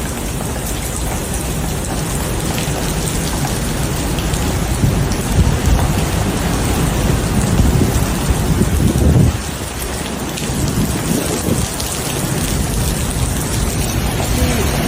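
Heavy typhoon rain with strong wind. From about four and a half seconds in, low rumbling gusts swell louder for several seconds, then stop suddenly about nine seconds in, leaving the steady rain noise.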